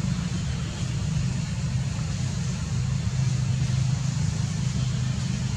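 Steady low engine hum, like a motor vehicle idling, with a faint hiss above it.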